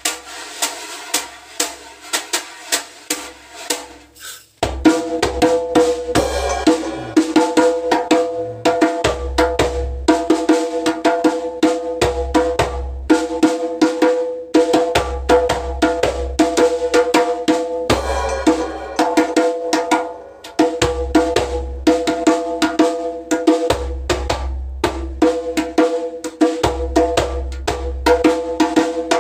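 Djembe played with brushes, a dense run of light, crisp strokes. About four and a half seconds in, the player switches to bare hands, a fuller rhythm with steady ringing tones and low bass pulses underneath.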